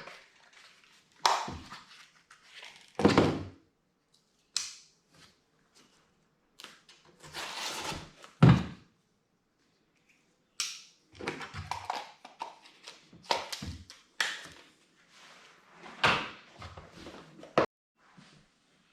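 A package of highway pegs and mounting hardware being opened and unpacked by hand: scattered knocks and thunks as the box and parts are moved about, with short stretches of rustling.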